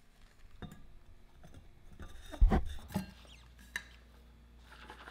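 Stainless steel water bottle being handled as electrolyte powder is tipped in and the lid put on: a few light clicks and taps, and one loud knock about halfway through. Near the end a hissing rattle starts as the bottle is shaken to mix the drink.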